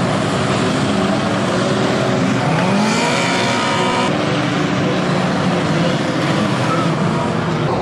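Engines of several old banger-racing cars running and revving hard as the pack jostles on a dirt track, with one engine's rev rising about two and a half seconds in.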